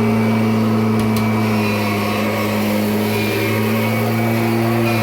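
Kirby G6 upright vacuum cleaner running steadily with a low hum under its motor and fan noise, during a suction test.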